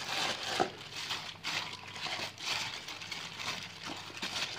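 Disposable plastic glove crinkling and wet skin squelching as a raw whole chicken is rubbed with marinade in a plastic bowl, in uneven swishes and scrapes.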